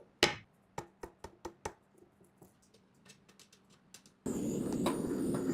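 Small metal parts being handled in close-up: one sharp knock, then a quick run of light clicking taps. About four seconds in, a steady mechanical noise cuts in abruptly and keeps going.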